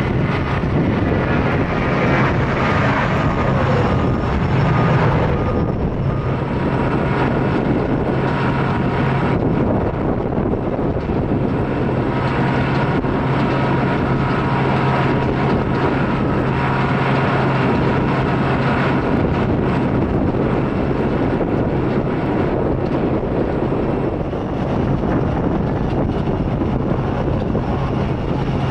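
Jet airliner engines running steadily: a loud, even rush of noise over a constant low hum.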